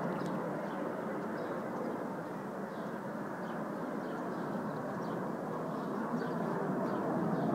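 Steady distant jet noise from the Frecce Tricolori's Aermacchi MB-339 jets, with faint high bird chirps now and then.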